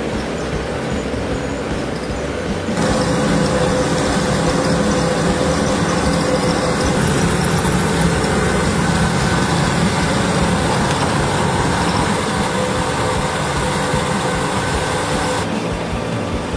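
A treadmill belt running at 15 km/h, with a brick-built model truck's rubber-tyred wheels spinning on it: a steady mechanical whir with a faint hum. It gets louder and brighter about three seconds in and drops back near the end.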